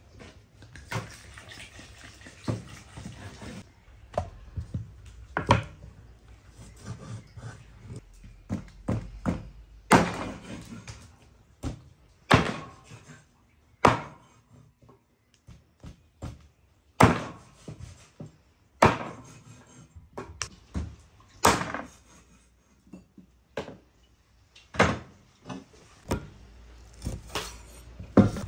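Meat cleaver chopping raw bone-in lamb on a thick wooden cutting board: single sharp thunks every second or two, some much louder than others. In the first few seconds there is a steady splashing hiss of water poured from a jug over hands.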